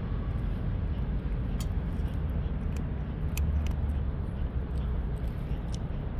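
A cat crunching dry kibble: a few sharp, crisp crunches spread through, over a steady low rumble.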